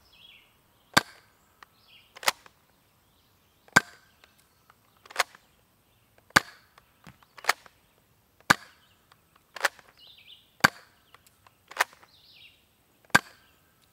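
Adventure Force Blitz 6 foam dart revolver being primed and fired in a steady string: about eleven sharp plastic clacks, roughly one a second.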